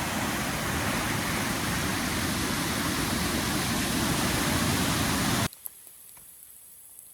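Steady rushing of a creek in flood, many feet above its normal level. It cuts off abruptly about five and a half seconds in, leaving only a faint background.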